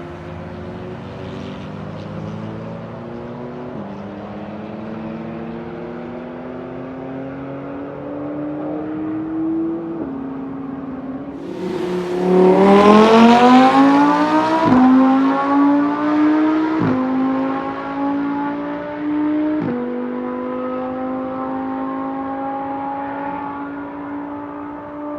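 Car engine and exhaust under acceleration, its note rising in pitch and loudest during a hard pull about halfway through. It has several short breaks where the note drops and picks up again, and it runs steadier towards the end.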